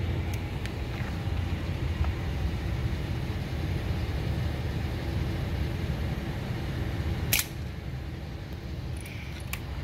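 Steady outdoor rumble of passing road traffic, with a single sharp crack about seven seconds in: an air rifle shot fired on low power.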